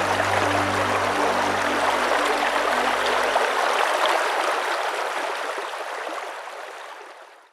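Shallow stream running over rocks, a steady rush of water that fades out toward the end.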